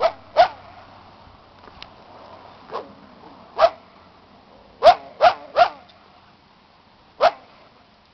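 A canine barking: about eight short, single barks at uneven intervals, three of them in quick succession about five seconds in.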